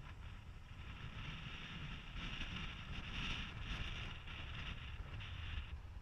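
Car driving on a paved road: steady wind and road noise, a low rumble with a hiss above it, easing off shortly before the end.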